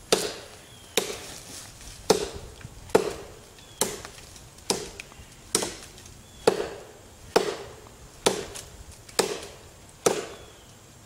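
SOG SOGfari 13-inch steel machete chopping into the trunk of a dead tree: about a dozen sharp blade strikes into the wood at an even pace of roughly one a second, cutting a thick notch.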